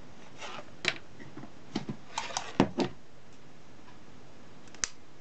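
A scattered series of light plastic clicks and knocks as an opened electric shaver's inner frame and circuit board are handled and lifted out of the housing, ending with one sharp click.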